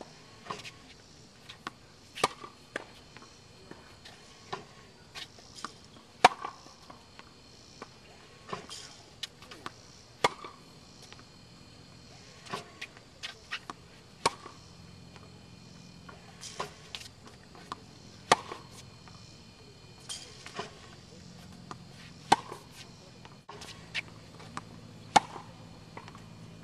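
Tennis balls struck with a racket and bouncing on a hard court, a sharp pop about every two seconds with smaller knocks in between.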